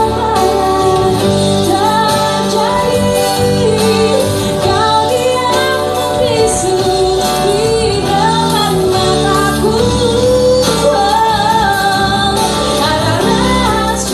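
A band playing a pop song, with a singer carrying the melody in long held, bending lines over steady bass and backing instruments.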